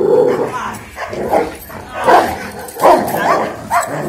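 A dog barking in a series of short barks and yelps during muzzled protection (bite) training.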